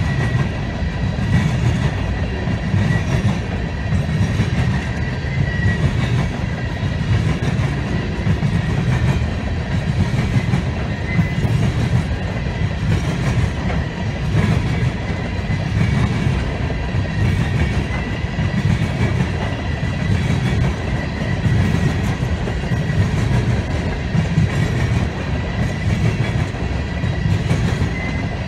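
Loaded coal hopper cars rolling past: a loud, steady rumble with wheels clattering rhythmically over the rail joints.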